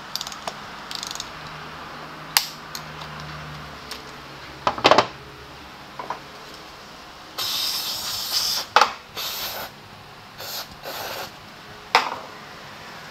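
Metal clinks and knocks of hand tools against a steel oil drain pan, the loudest a little before halfway. In the second half, several hissing bursts from an aerosol spray can, the first and longest lasting about a second.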